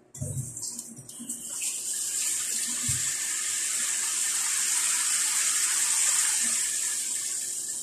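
Pork liempo sizzling in hot oil in a large steel pot: a steady hiss that builds over the first couple of seconds and then holds. Two low knocks come near the start.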